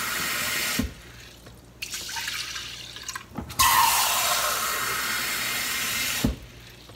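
Kitchen tap running into a plastic measuring cup. It shuts off just under a second in and runs again for nearly three seconds from about three and a half seconds in. In the quieter gap, water is poured from the cup into a clay pot.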